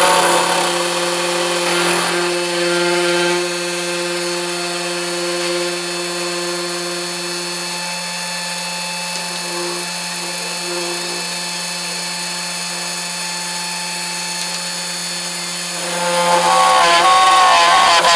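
Spindle motor of a GRBL 3018 Pro desktop CNC router running with a steady whine of several pitches while it drills holes. It grows louder and rougher about 16 seconds in as the bit cuts into the sheet.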